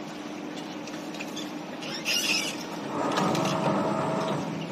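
Semi-automatic can seamer running for about a second and a half near the end, with a steady whine, as it seams an easy-open lid onto a bowl-shaped can. A short metallic clatter comes about two seconds in, over a steady machine hum.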